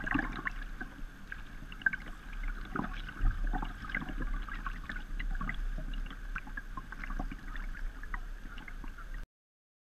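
Water splashing and lapping against a kayak's bow as it is paddled through choppy water, with many small irregular splashes. The sound cuts off suddenly near the end.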